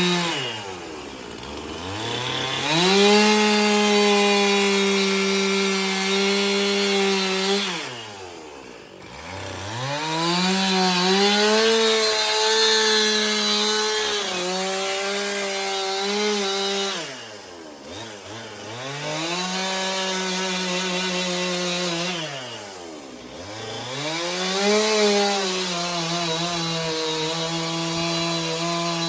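Two-stroke chainsaw carving a pine log, running at high revs and falling toward idle four times as the throttle is let off, each time revving back up.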